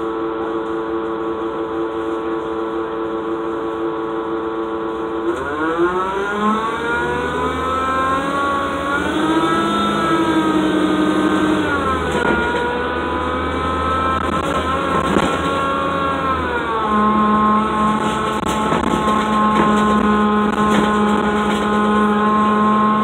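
Cummins ISL diesel engine of a 2007 Gillig Low Floor transit bus, heard from inside the cabin: idling steadily, then rising in pitch as the bus pulls away about five seconds in, dropping twice as the Allison B400R5 automatic upshifts, and settling to a steady pitch. The engine has a funky sound, the sign of an engine fault that needed repair.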